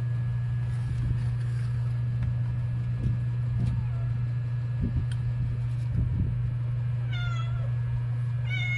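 A cat meowing: two short, high-pitched mews near the end, over a steady low hum, with a few faint handling knocks.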